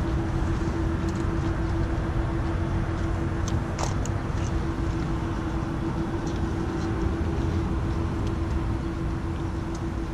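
Steady electrical hum of a Tesla charging at a Supercharger: a constant mid-pitched tone over a low rumble, with a few light clicks about four seconds in.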